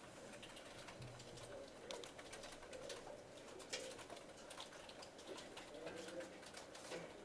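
Faint, scattered clicking of computer keyboards being typed on, over a low room hum.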